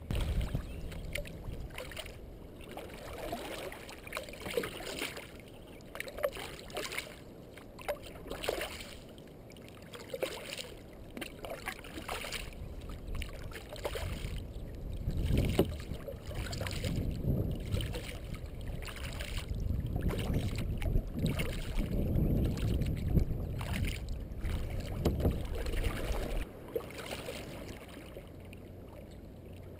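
Kayak paddle strokes: the blades dip and splash in the water about once a second, with water dripping off them. About halfway through, a low rumble of wind on the camera's microphone comes in for roughly ten seconds.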